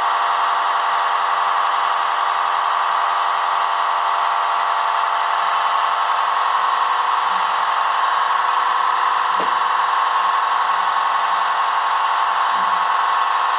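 Steady mechanical running sound, like fans or a compressor, from the sound decoder of a model DB class 110 electric locomotive, played through its small loudspeaker. There is a brief click about nine seconds in.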